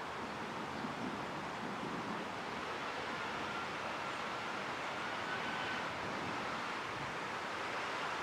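Steady outdoor background hiss with no thunder or other sudden sounds, and a faint thin whistle-like tone that comes and goes from about halfway through.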